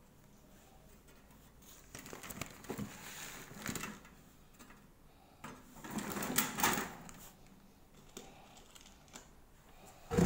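Handling noise from a ring-bound set of copper plates being moved by hand: irregular clicks, knocks and rustling in two clusters, one a few seconds in and a louder one past the middle.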